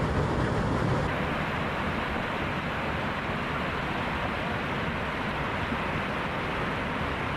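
Waterfall: a steady rush of falling water, with a slight change in tone about a second in.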